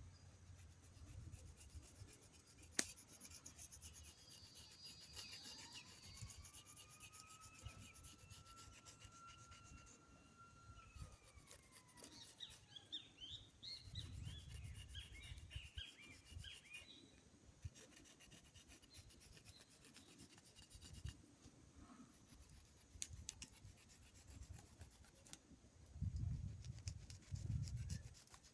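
Faint scraping strokes of a knife carving wood. A long whistle-like tone rises, holds and falls in the first half, and a burst of bird chirps follows.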